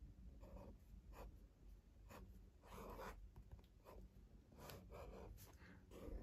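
Faint scratching of a fineliner pen drawing on notebook paper, in short irregular strokes with brief pauses between them.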